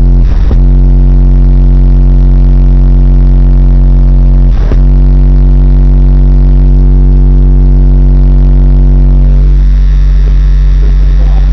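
Four 12-inch NVX VCW car subwoofers playing a sustained low bass tone at competition SPL level, loud enough to overload the recording, with two brief dropouts: about half a second in and just under five seconds in.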